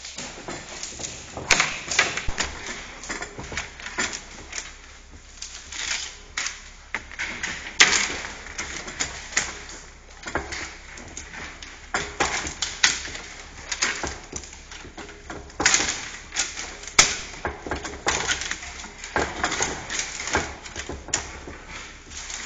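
Willow rods being woven and worked into a hurdle: an irregular run of knocks, taps and clicks of wood on wood with rustling between them.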